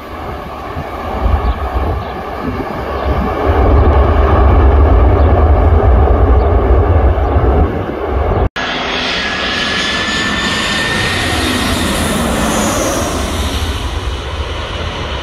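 A jet airliner just landed and decelerating on the runway, its engines running loud with a deep rumble, typical of reverse thrust, until an abrupt cut about eight seconds in. After the cut an Airbus A318 on final approach: jet engines running steadily with a thin high whine that rises slightly.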